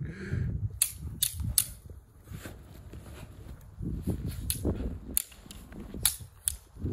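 Thin prop sticks clacking together in a mock sword fight: sharp clacks, a quick run of three about a second in and several more near the end.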